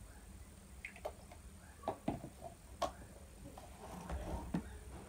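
Milk poured from a carton into a glass, then several light knocks and clicks as the carton and glass are set down and handled on a table.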